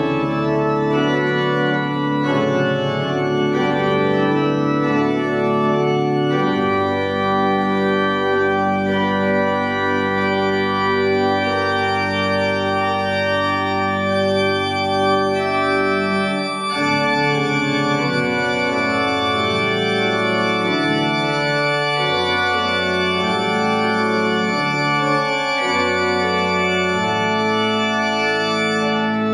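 Church organ playing a hymn as a closing postlude, in slow sustained chords over a pedal bass, with a brief break between phrases about two-thirds through.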